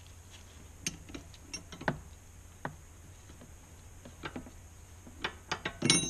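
Sparse light metallic clicks and taps from a ring spanner working a brake caliper's bleed nipple during brake bleeding. Near the end, a louder quick run of metallic clinks with a ringing tone.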